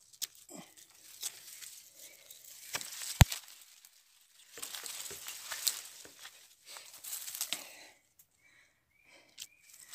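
Rustling and crackling of dry leaf litter and palm fronds as someone moves on foot through dense brush, in bouts, with one sharp loud knock about three seconds in.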